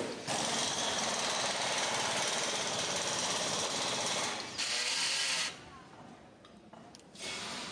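Handheld power tool hammering rapidly in a long run of about four and a half seconds, followed by a shorter second burst. This is a fastener being driven on an electric tricycle frame during assembly.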